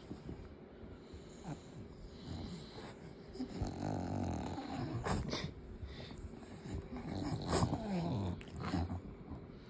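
French Bulldog vocalising: a run of short grunts that rise and fall in pitch, with a few sharp clicks in between.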